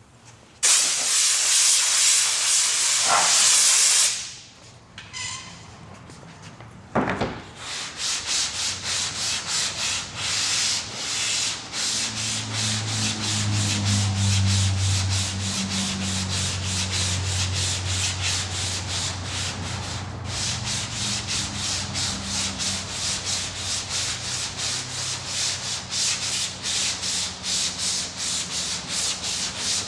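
Compressed air hissing for a few seconds as the sandpaper is blown clean of dust, then hand block-sanding of body filler on a car's quarter panel: sandpaper on a sanding block scraping in quick, regular back-and-forth strokes.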